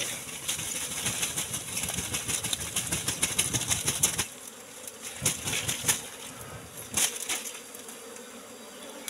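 Wild honeybees buzzing close to the microphone around a nest being cut open for honey. There is a dense rustle and crackle for about the first four seconds, then it goes quieter, with a few sharp clicks.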